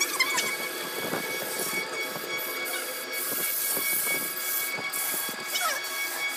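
Wood lathe running with a steady whine while a gloved hand sands the spinning turned wood, giving a rubbing hiss. A couple of short falling squeaks come near the start and again near the end.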